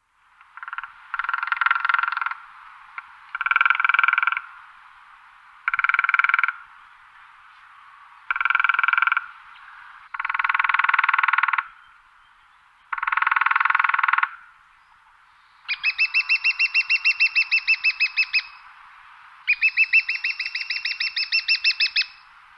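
Woodpecker drumming on wood: eight rapid drum rolls about a second or two apart. The last two rolls are longer and higher-pitched, with the separate beak strikes more distinct.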